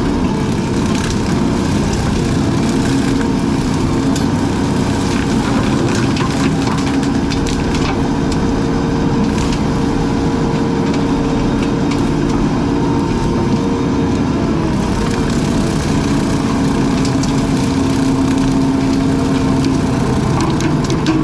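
Engine of a brush-cutting machine running steadily under load, with frequent cracks and snaps of brush and wood being cut.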